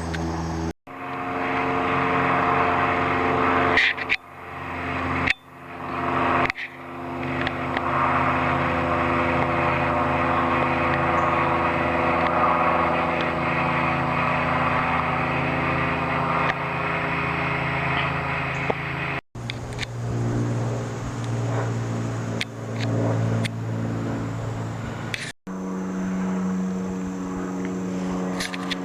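Airplane engines running, a steady drone of several tones over a hiss. It cuts abruptly about five times, and the pitch and mix change at each cut.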